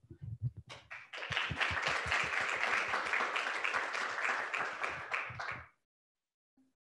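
Audience clapping, building up about a second in and stopping abruptly about a second before the end.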